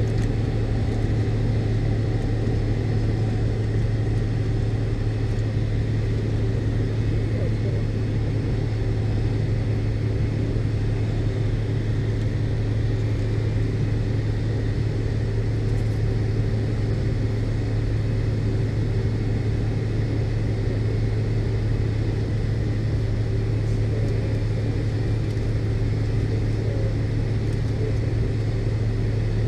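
Steady cabin drone of a McDonnell Douglas MD-82 airliner, heard from a window seat near its tail-mounted jet engines: a constant deep rumble with a faint steady hum above it.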